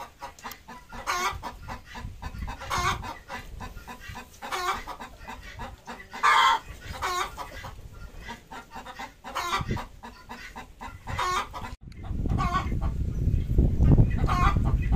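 Desi hen clucking as she lays an egg: short calls repeating about once a second, with one louder call about six seconds in. After a sudden break about twelve seconds in, a louder low rumbling noise runs under the clucks.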